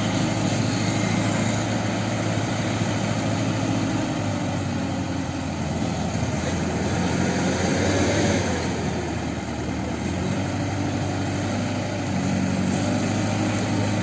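Mobile crane's diesel engine running steadily at idle, a continuous low drone, swelling a little about eight seconds in.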